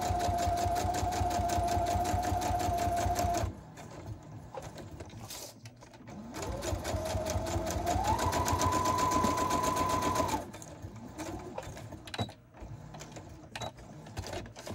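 Electric sewing machine stitching through paper: it runs with a fast, even needle rhythm and a steady whine, stops, then starts again with a whine that rises as it speeds up, and stops about two-thirds of the way through. A few light clicks follow.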